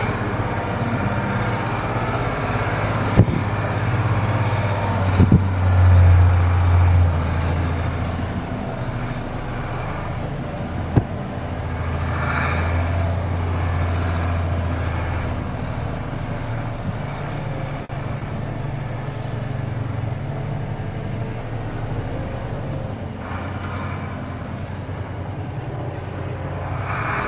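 Mercedes-Benz Unimog U2450 6x6 truck's diesel engine running under load off-road, its low drone swelling and easing, with a few sharp knocks.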